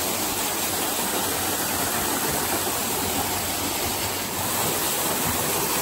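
Steady rushing of a creek waterfall, an even roar of falling water.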